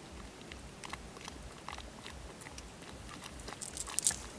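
Soft scattered clicks and rustles of a cast net being handled and gathered for a throw, the net and its weighted rope knocking and rubbing. The clicks come faster and louder near the end as the net is swung out.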